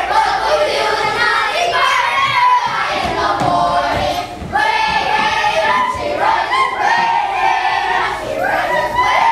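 A group of children's voices singing and shouting together, with a short dip about four seconds in.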